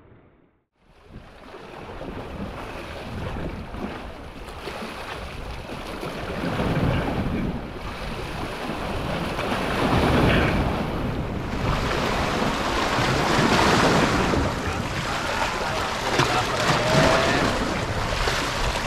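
Sea waves washing and breaking against shore rocks, with wind on the microphone; the surf grows louder and stays up from about ten seconds in.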